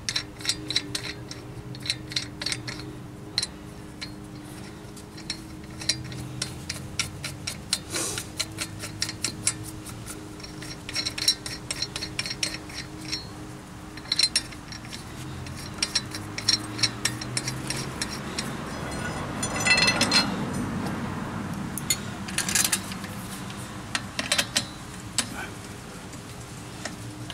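Steel lug nuts clinking against the studs of an aluminium wheel spacer as they are handled and threaded on by hand, with scattered sharp metallic clicks and short runs of quick clicks.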